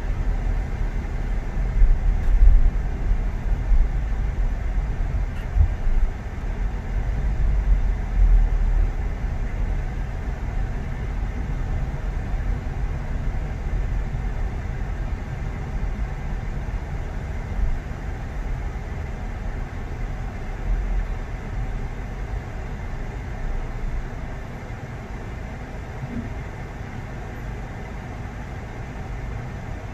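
A car being driven: a steady low rumble of road and engine noise, with a few louder bumps in the first several seconds that ease off near the end.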